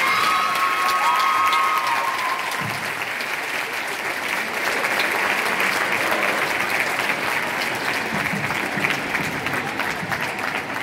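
Audience applauding, a dense steady clatter of clapping, with a few high held tones over it in the first two seconds.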